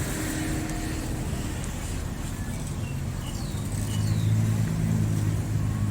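A motor vehicle's engine running with a low steady hum that grows louder about four seconds in, as if drawing closer.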